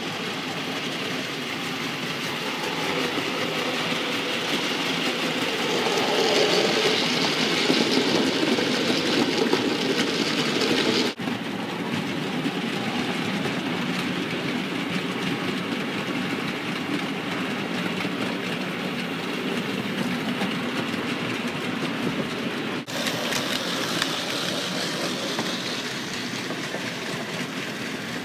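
OO-gauge model freight train running on the layout: the locomotive's motor whirring and the wagons' wheels clicking over the rail joints, loudest about a third of the way in as it passes close. The sound breaks off for an instant twice.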